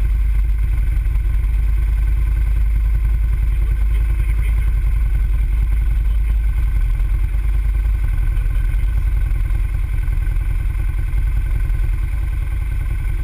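Can-Am ATV engine idling steadily while the machine stands still, a low, even rumble heard close up from a camera mounted on the quad.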